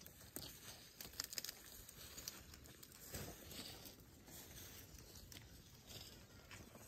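Faint rustling and crunching of brush and grass as African elephants walk and feed through it, with scattered small snaps and a louder crackle about three seconds in.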